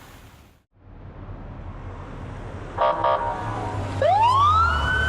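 A car horn beeps twice, then a siren begins a rising wail, over a low vehicle engine hum.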